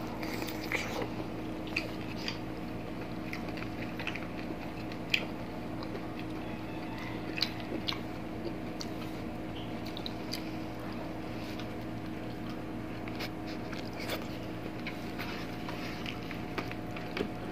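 Close-miked eating sounds: people chewing and biting on fried fish and rice eaten by hand, with frequent small wet clicks and lip smacks. A steady low hum runs underneath.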